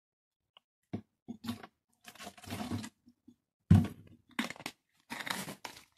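Irregular rustles, clicks and scrapes of a bicycle chain and a plastic bottle being handled, with one louder knock a little past halfway.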